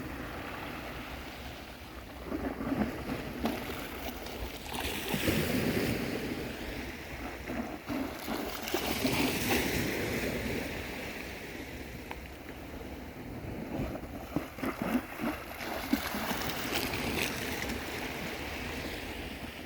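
Sea waves breaking and washing up the beach, the surge swelling louder about five seconds in and again about nine seconds in.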